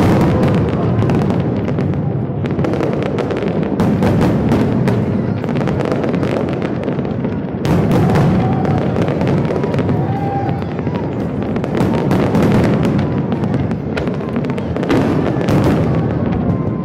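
Aerial fireworks display going off in quick succession: many overlapping bangs and crackles over a continuous low rumble, with no let-up.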